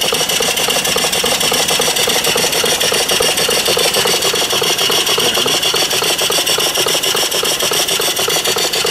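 Home-built vertical single-cylinder live steam engine running steadily on boiler steam, its exhaust chuffing in rapid, even beats over a constant steam hiss and the clatter of its moving parts.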